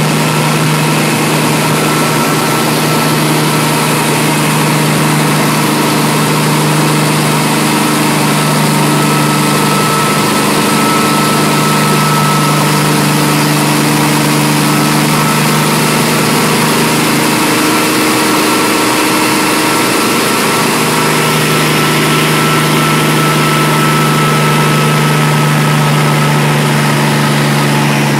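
Bell 47 helicopter's piston engine and rotors running steadily in flight, a loud constant drone. The pitch wavers briefly about two-thirds of the way through, then settles again.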